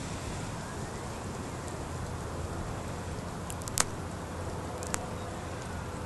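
Steady drone of a distant Cessna 150's engine over a low rumble, with a sharp click a little past halfway and a fainter one about a second later.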